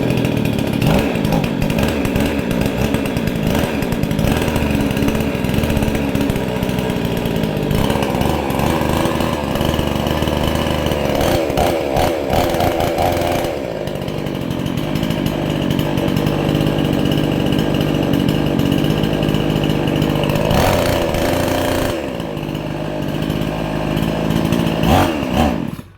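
Two-stroke chainsaw engine running again after its flooded spark plug was burned dry, revved up and down in stretches, then shut off near the end.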